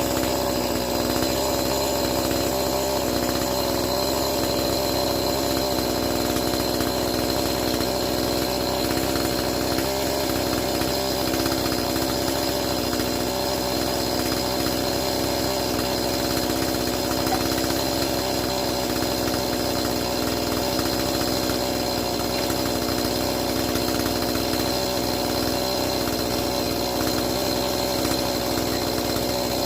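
Chainsaw running at a steady speed the whole time, its pitch and loudness holding constant.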